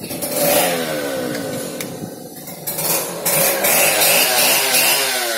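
A small petrol engine running somewhere other than the opened-up chainsaw, its pitch falling away twice, once about a second in and again near the end. Light metal clinks come through as well.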